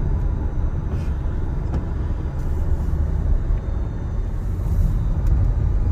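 Car driving up a steep mountain road, a steady low rumble of engine and tyre noise heard from inside the cabin.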